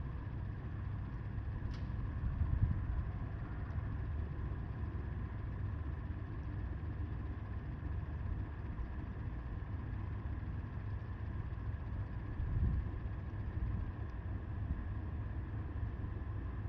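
Wind buffeting the microphone: a steady low rumble that swells in gusts, about two and a half seconds in and again about twelve seconds in.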